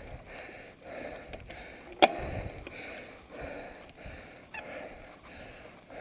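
Corratec mountain bike rolling over a bumpy dirt trail, with the rider breathing hard in a steady rhythm. A sharp clunk about two seconds in as the bike jolts over a bump, with a few lighter rattles and clicks.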